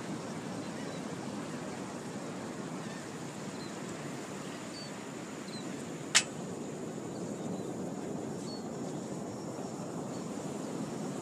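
Steady rushing outdoor noise with faint, high bird chirps now and then, and one sharp click about six seconds in.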